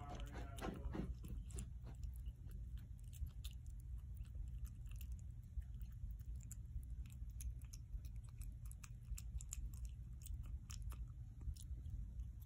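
A puppy chewing and crunching dog food, with irregular sharp crunches all through. A short pitched sound comes in the first second.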